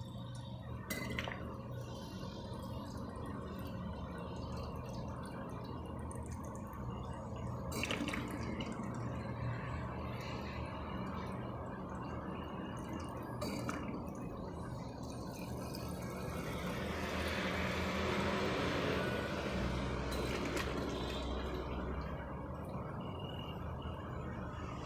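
Pure water being poured into a small 100 mm PC water-cooling reservoir, trickling and splashing, with a few sharp clicks. It grows louder for several seconds past the middle.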